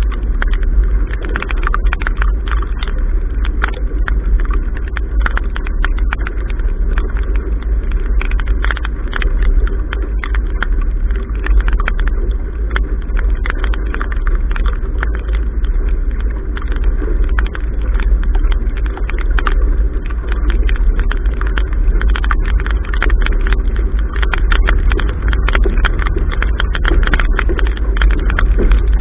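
Strong wind buffeting the microphone of a camera mounted at a sailboat's bow, a steady low rumble over the wash of the hull through choppy water. Many sharp, irregular ticks from water drops striking the camera housing run through it.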